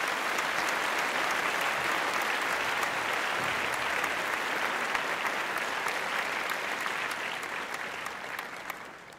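Audience applauding, steady at first and fading out near the end.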